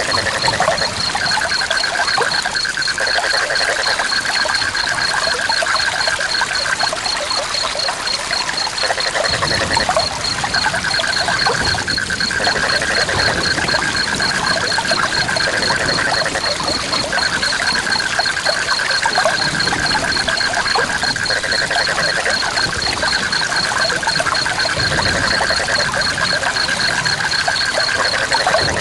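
River water running steadily. Over it, animal calls: a fast-pulsing high call that goes on without a break, and a lower pulsing call that comes in phrases of about five seconds with short pauses between them.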